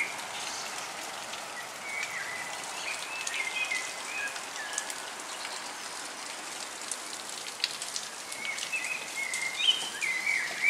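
Steady patter of rain and water dripping off roofs and trees as a hailstorm eases, with sharp drips among it. A bird sings short phrases a couple of seconds in and again near the end.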